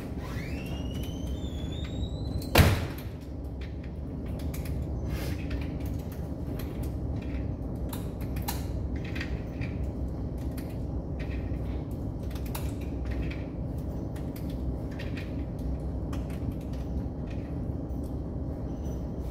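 One sharp bang about two and a half seconds in, over a steady low rumble with scattered light clicks and knocks.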